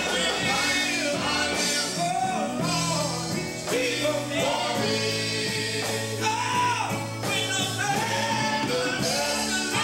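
Male gospel quartet singing live into microphones, a lead voice with other voices behind it, backed by electric guitar, bass and keyboard.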